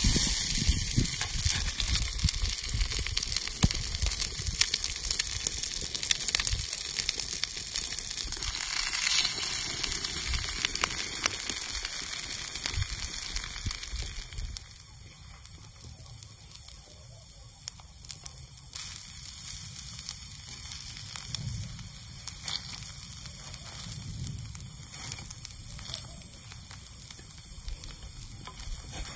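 Shea butter sizzling and crackling on a hot flat stone as food fries in it. The sizzle drops noticeably quieter about halfway through.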